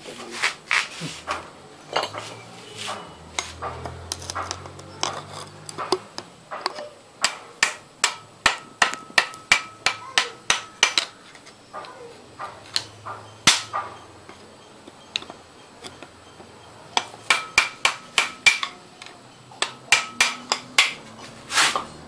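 Hammer striking a bicycle crank arm and bottom-bracket spindle, metal on metal with a short ring. The blows come singly at first, then in quick runs of two or three a second, knocking the crank off its spindle without a crank puller.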